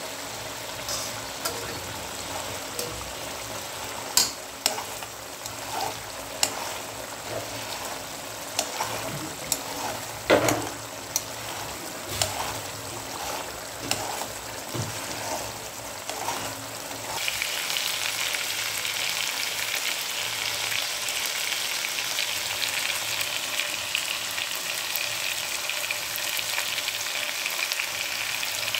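Puti fish curry frying and sizzling in a hot pan, stirred with a spatula that scrapes and knocks against the pan through the first half. About two-thirds of the way in, the sizzle suddenly becomes louder and denser and stays steady.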